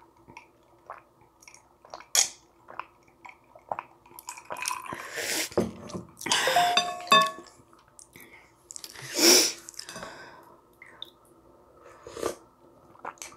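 Close-miked chewing of spicy ramyun noodles, broken by several short, loud slurps of broth from a wooden spoon, the biggest a little past the middle and a smaller one near the end.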